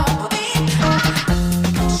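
Background music with a steady beat, a bass line and plucked-string notes.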